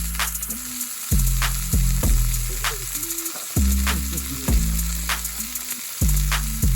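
Beef steak sizzling in an iron frying pan over a campfire, a steady high hiss. Background music plays over it, with low notes starting sharply about once a second.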